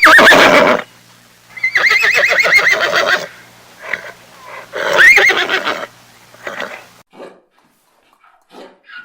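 A horse whinnying three times: a short call at the start, a longer one with a wavering, trilling pitch about two seconds in, and another about five seconds in, followed by a few fainter snorts and sounds.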